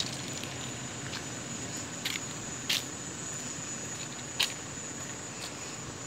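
Footsteps crunching on dry ground, a few short sharp crackles spaced irregularly, over a steady high-pitched insect drone in the forest.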